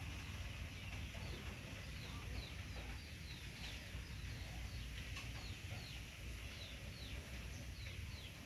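A bird chirping in the background: a steady run of short, falling high peeps, about two or three a second, over low background noise.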